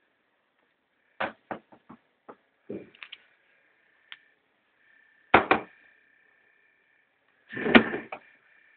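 Alienware m15 laptop's cooling fan giving a faint steady high-pitched whine that comes and goes, the intermittent fan noise the owner reports from the left-side fan. Several sharp knocks and two louder thumps, about halfway through and near the end, cut across it.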